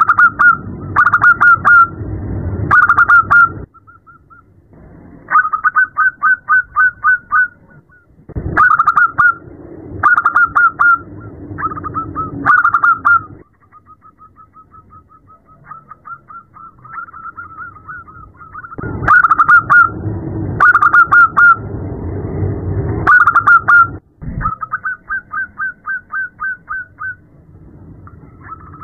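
Zebra doves (perkutut) cooing: runs of quick staccato notes broken by louder rolling coo phrases, repeating every second or two with brief pauses. It is given as a female perkutut calling to a male.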